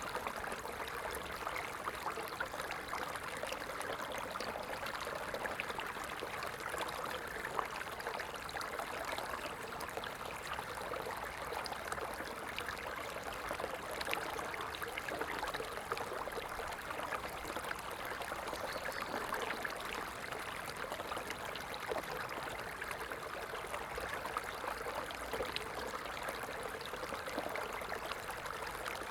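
A stream flowing steadily, with a continuous babble of small splashes and trickles over stones.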